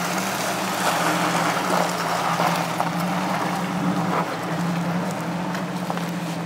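Jeep Wrangler TJ engine running with a steady, nearly unchanging hum, along with a noisy rushing haze.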